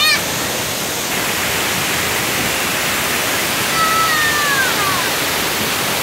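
Steady rush of water from a waterfall and the rocky rapids below it. Its tone shifts slightly about a second in.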